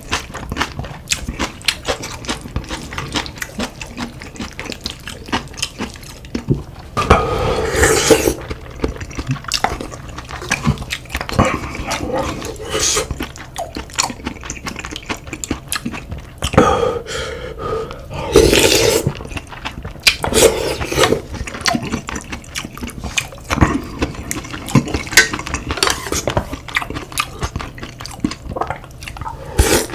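Close-up eating sounds: chewing and wet slurping of soup with rice, utensils clicking on dishes, and several longer, louder slurps.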